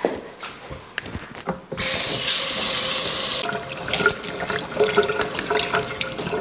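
Kitchen tap turned on after a few light knocks, water running hard into a stainless steel sink, then splashing unevenly as hands are rubbed and washed under the stream.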